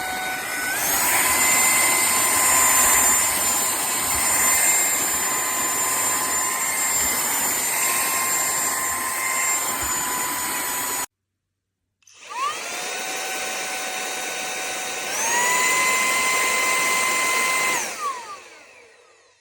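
Cordless handheld vacuum's small brushless motor running with a high whine, stepping up to a higher speed about a second in. It cuts off abruptly just past halfway, starts again a second later, steps up to the higher speed again, then winds down near the end.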